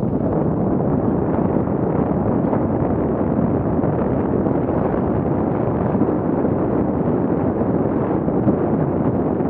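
Steady rushing wind noise buffeting the microphone of a camera on a mountain bike rolling fast down a dirt singletrack, mixed with the rumble of the tyres on the trail.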